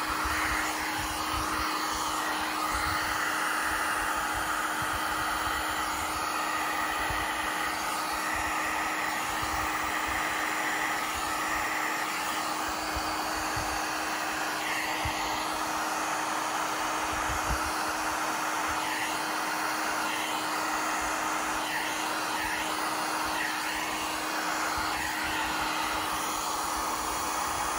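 Electric heat gun running steadily, its fan blowing hot air with a faint constant hum, held low over wet epoxy resin to push and feather the white pour.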